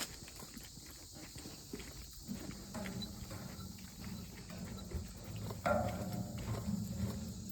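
Footsteps, a run of short knocks as someone walks. A low steady hum joins about two seconds in, and there is a louder knock-and-rustle near the end.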